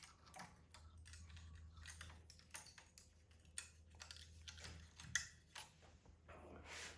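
Faint scattered clicks and light taps from handling the charger's parts, the sharpest about three and a half and five seconds in, over a low steady hum.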